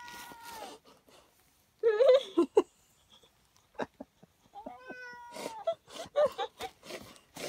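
A cat meowing several times in drawn-out calls, the loudest and most wavering about two seconds in, with a few faint clicks between the calls.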